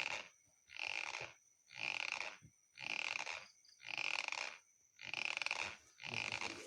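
A sleeping person snoring in a rhythm of about one snort a second. The snore is likened to the exhaust of a Yamaha RX-King two-stroke motorcycle.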